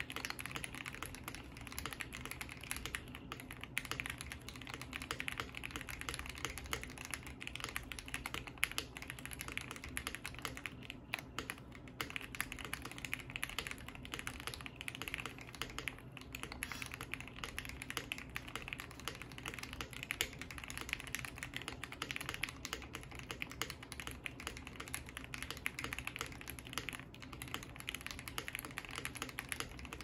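Fast, continuous two-handed typing on an Ikki68 Aurora custom mechanical keyboard: gasket-mounted case, aluminium plate and lubed switches under GMK keycaps, a dense, steady stream of key clacks.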